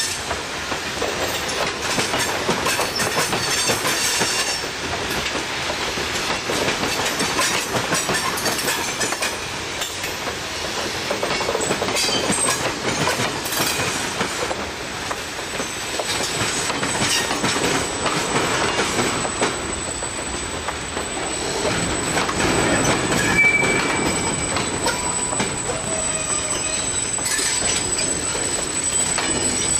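Freight train of hopper cars rolling past close by: a steady rumble of steel wheels on rail with repeated clacks, and a few brief wheel squeals in the second half.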